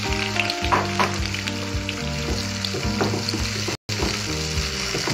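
Chopped tomatoes sizzling in hot oil with green chillies in a non-stick pan, stirred with a wooden spatula. The sound cuts out for an instant about four seconds in.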